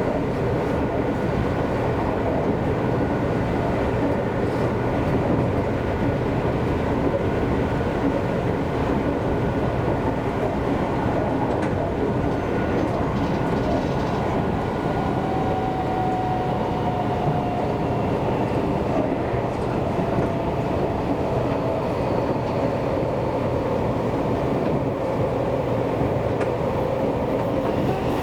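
Seibu Railway electric commuter train running steadily between stations, heard from inside the car: a continuous rumble of wheels on rail with a thin steady whine on top.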